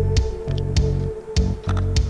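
Background music with a steady beat: a held tone over a pulsing bass line with a sharp percussive hit about every half second.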